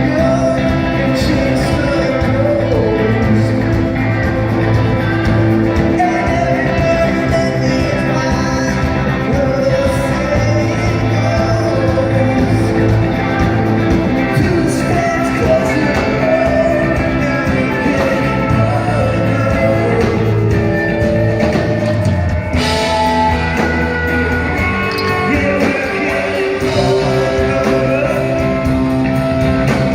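Rock band playing live: guitars, bass and drums with singing, loud and steady throughout.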